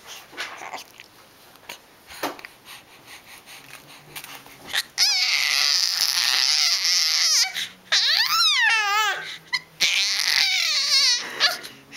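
A baby's high-pitched squeals: a long wavering squeal about five seconds in, then two shorter ones that rise and fall in pitch.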